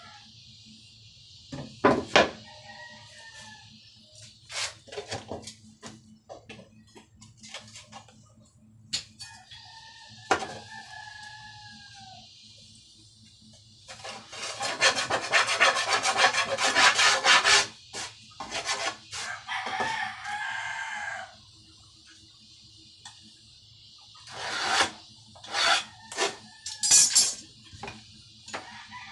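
Workshop handling noises: sharp knocks and clatter as metal bars and a board are moved and set down, and a rasping scrape for a few seconds around the middle. A rooster crows several times.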